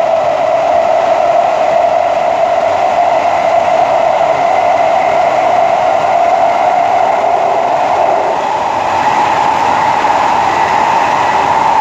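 SMRT C151A metro train running, its traction motor whine rising slowly and steadily in pitch as the train gathers speed, over steady wheel-on-rail noise.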